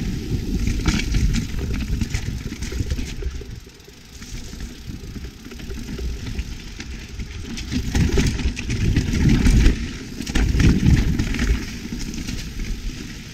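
Wind rushing over the microphone as a mountain bike rolls down a singletrack trail, with frequent rattles and knocks from the bike and tyres on the ground. It eases off briefly about four seconds in and gets louder and rougher from about eight to eleven seconds in.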